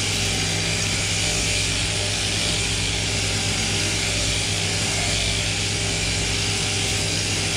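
Sheep-shearing machine running steadily: the electric handpiece and its drive giving a constant low hum under a hiss of the cutter.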